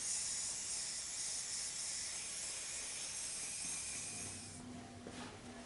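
Steady hiss of air at a Kawasaki KLR650's rear tire, cutting off about four and a half seconds in, as the newly mounted inner tube is tested for holding air; the tube has a pinch flat.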